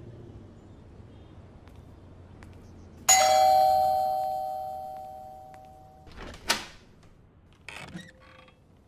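Electronic doorbell rings once about three seconds in, a single chime that fades away over about three seconds. It is followed by a couple of short clatters as the front door's latch is worked near the end.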